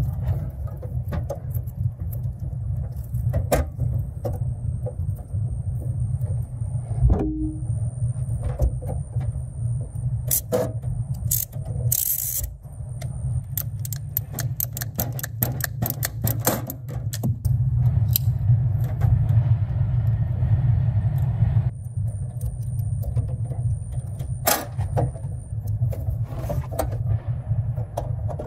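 Hand work on service-entrance cables at an electrical meter base: repeated clicks, snips and scrapes of wire strippers and metal parts against a steady low rumble.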